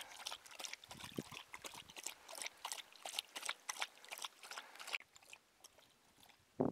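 A husky lapping water from a lake's edge: a quick, irregular run of wet laps that stops about five seconds in.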